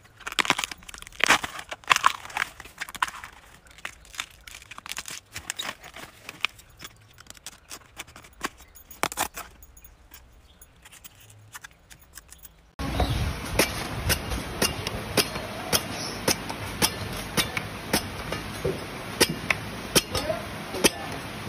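Husk sheaths being peeled and torn off a freshly cut bamboo shoot by hand: a run of irregular crackling, tearing and snapping. About two-thirds of the way through it cuts to a machete chopping the husk off a young green coconut on a wooden board: sharp, regular strikes about twice a second over steady background noise.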